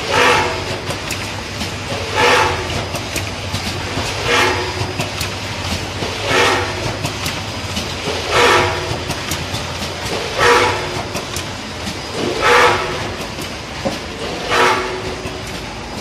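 Automatic candy cartoning machine running, with a steady mechanical hum under a short, loud burst that repeats about every two seconds as the machine cycles.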